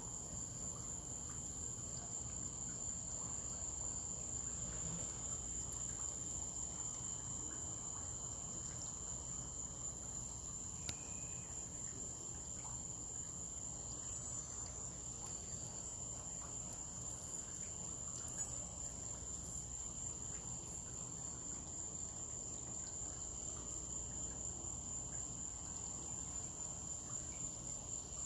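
Night insects giving a steady, high-pitched, unbroken trill.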